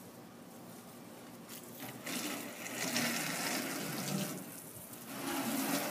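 Garden hose spraying water, a hiss that starts about a second and a half in, swells and dips, and runs on.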